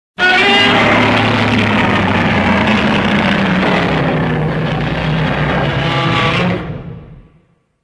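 Shin Godzilla roar sound effect: one long, loud cry made of many held, stacked tones over a rough noisy body. It starts abruptly and fades out over its last second or so.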